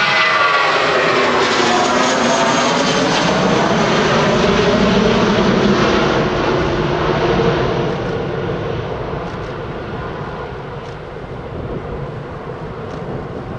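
Airbus A320-232's two IAE V2500 turbofan engines at takeoff thrust as the airliner climbs away. A loud rush with a whine that falls in pitch in the first couple of seconds, then fades gradually over the second half.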